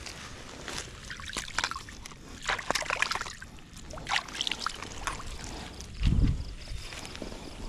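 Water sloshing and splashing in irregular bursts, with a low thump about six seconds in.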